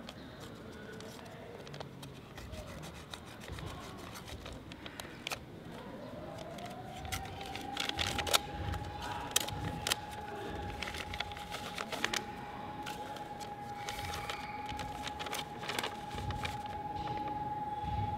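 Sheets of paper being unfolded and handled, rustling and crackling in short bursts. About six seconds in, a single steady high tone slides up into pitch and holds.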